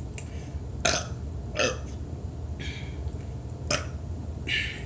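A woman burping several short times, the gas brought up by gulps of cold Pepsi.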